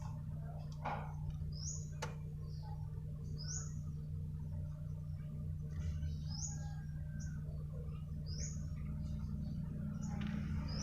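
A small bird chirping, one short high rising chirp about every two seconds, over a steady low hum, with a sharp click about two seconds in.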